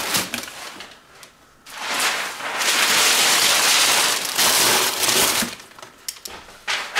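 Sheets of newsprint packing paper being crumpled and stuffed into a cardboard box: a dense crinkling rustle, brief at first, then loud and continuous from about two seconds in until it tails off near the end.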